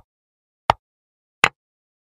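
Chess program's piece-move sound effect: a short click for each move as the game replays automatically, evenly spaced about three-quarters of a second apart, twice.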